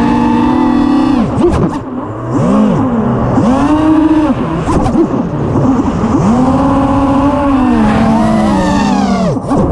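Eachine Wizard FPV racing quadcopter's brushless motors and propellers whining in flight, heard close from the onboard camera. The pitch swoops up and down over and over as the throttle is punched and cut, and briefly drops away about two seconds in and again just before the end.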